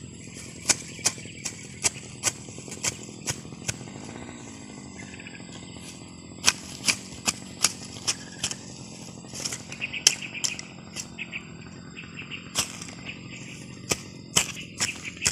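Small hand hoe chopping into soil and grass roots while weeding: sharp strikes two or three a second, in runs with short pauses between.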